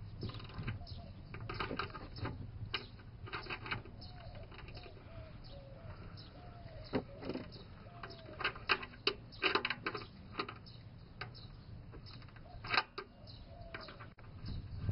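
Irregular clusters of sharp metallic clicks and clinks from a wrench working the oil drain plug loose under a car.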